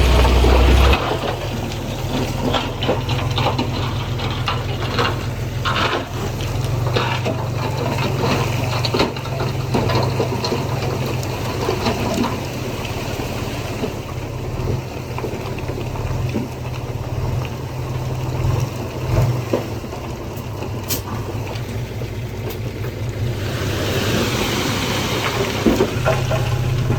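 Heavy diesel earthmoving machinery running at work: a steady low engine rumble with scattered crackling and knocking of soil and stones, loudest in the first second, with a swell of rushing noise near the end.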